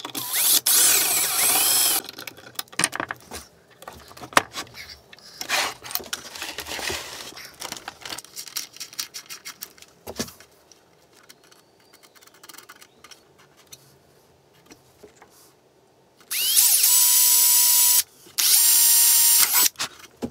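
Hand-held power drill running in bursts on a CNC router frame: about two seconds at the start with the speed rising and falling, then clicks and handling noise, then two steady full-speed runs of a second or two each near the end.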